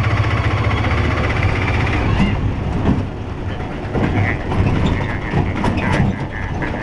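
Auto-rickshaw (tuk-tuk) engine running steadily under way, heard from inside the open cab. The body rattles and knocks over the rough road several times.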